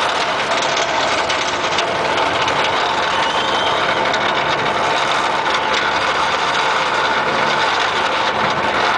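Roller coaster train being hauled up the chain lift hill: a steady mechanical rattle and hum from the lift chain and the train running on the track.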